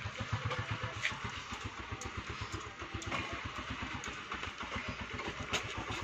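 Honda CD 70's small single-cylinder four-stroke engine idling with a quick, even putter, and a few light clicks on top.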